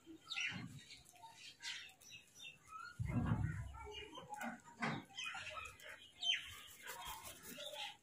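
House crows giving short, scattered caws while they feed, with a flutter of wings about three seconds in.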